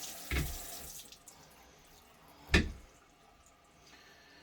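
Water running and splashing over sharpening water stones, fading out about a second in; then two knocks, the second and louder one about two and a half seconds in.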